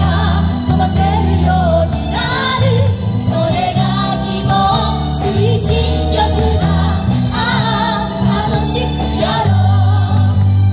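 Group of men, women and children singing a pop song together in chorus through microphones and a PA, backed by a live band with bass and drums.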